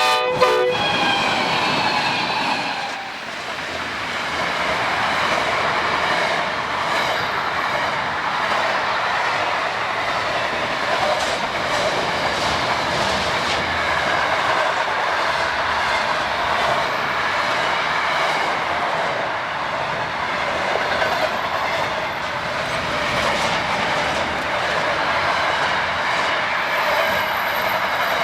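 A freight train passing: the locomotive's horn ends in the first few seconds, sliding down in pitch, then the wagons roll by with a steady rolling noise and the click of wheels over rail joints.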